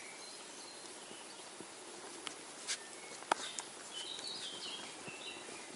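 Flat-coated retriever puppies making faint, short high squeaks and whimpers, clustered about four seconds in, with a few sharp clicks as they stir.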